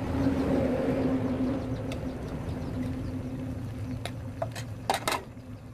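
A ladle and a bowl clinking sharply a few times against a metal wok as starch slurry is poured into the simmering broth, the strongest pair of clinks near the end. A steady low hum sits under it throughout.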